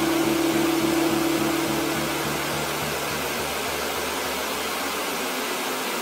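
Steady broad hiss like white noise, with a faint low pulsing repeating several times a second underneath; a held low tone fades out about a second and a half in.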